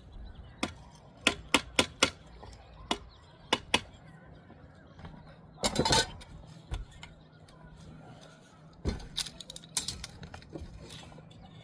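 Masonry work: a trowel or brick tapping and clicking sharply against brick, about eight quick taps, then a brief scrape about six seconds in and another run of taps near the end.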